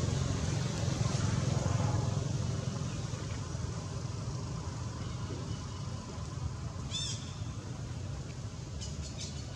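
Steady low rumble of motor traffic, easing off a little, with one short high-pitched chirp about seven seconds in.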